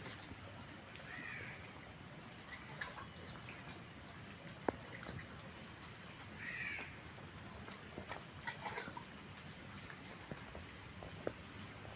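Crows cawing several times in the background over faint squirts of milk into a steel bowl as a cow is milked by hand, with one sharp click about halfway through.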